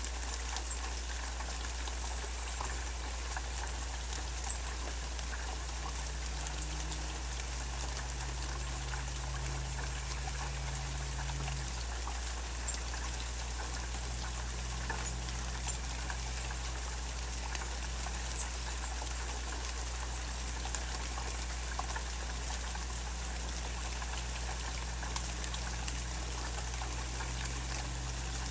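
Steady rain falling, with scattered drips and a low steady hum underneath.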